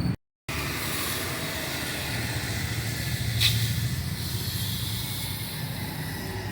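High-pressure water spray hissing steadily over the low, even hum of a running motor, during a washdown of a Cat backhoe loader. The sound briefly drops out just after the start, and there is a short sharp spit in the spray about three seconds in.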